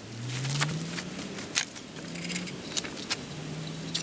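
A low engine hum, as of a vehicle, rising in pitch over the first second and then holding steady, with scattered light clicks and knocks.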